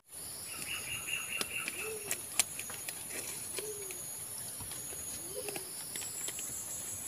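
White-eared brown dove cooing: three soft, low single coos, each rising and falling, about a second and a half apart.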